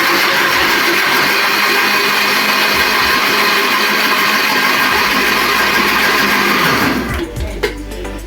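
Electric kitchen blender running steadily at full speed, then switched off about seven seconds in, the motor cutting out quickly.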